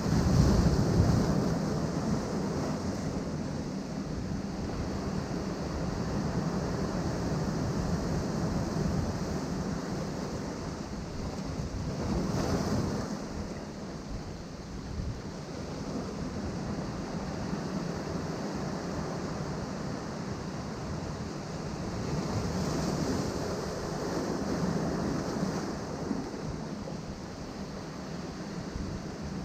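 Ocean waves washing in against a rocky shore, a continuous surf that swells louder at the start, again about twelve seconds in, and once more a little past twenty seconds.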